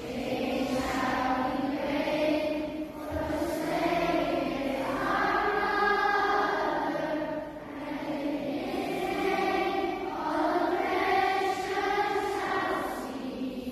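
A choir singing a slow song with musical backing, long held notes in phrases with short breaks between them.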